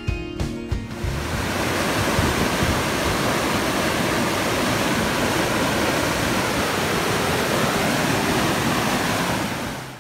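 Floodwater pouring over a small canal weir and churning through the spillway below: a loud, steady rush of water that fades away near the end.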